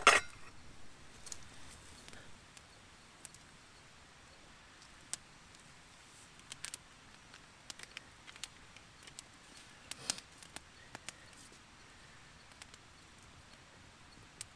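Campfire crackling: scattered sharp pops and clicks at irregular intervals over a faint steady background, with one louder crack right at the start.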